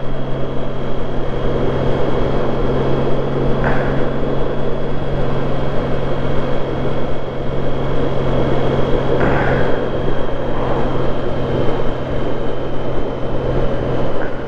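Motorcycle running at a steady cruising speed: an even engine hum under a constant rush of riding noise, with a faint steady high whine over it.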